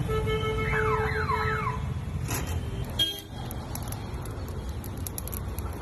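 An electronic, car-alarm-like siren sounds in the first two seconds: three quick falling sweeps over a steady tone, above a steady low rumble. About three seconds in there is a brief click, followed by faint crackling of the charcoal under the grilling skewers.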